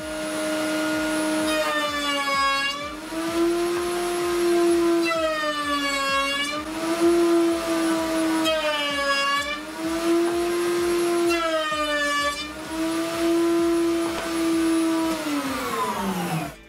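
Table-mounted wood router running with a steady high whine, its pitch dipping with a harsher cutting sound four times as a board's edge is fed past a roundover bit. Near the end it is switched off and winds down, the pitch falling away.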